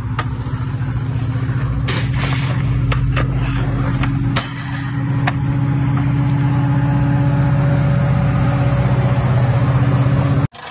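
Diesel locomotive engine running steadily, a deep drone that grows a little louder as the train approaches, with a few sharp clicks over it.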